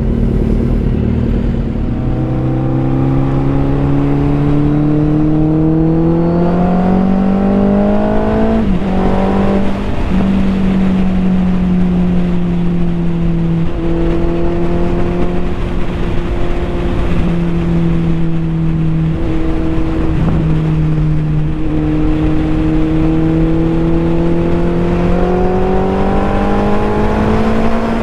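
Suzuki Hayabusa's inline-four engine under way, heard on board with wind rush: it climbs in pitch as the bike accelerates, drops at a gear change about a third of the way in, holds a steady cruise through the middle and climbs again near the end.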